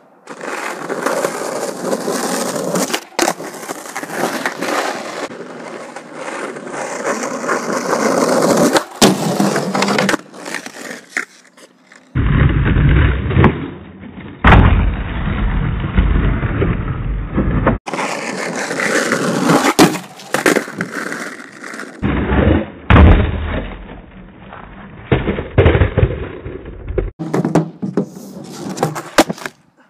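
Skateboard wheels rolling on pavement, with a few sharp clacks from the board. The noise changes abruptly several times.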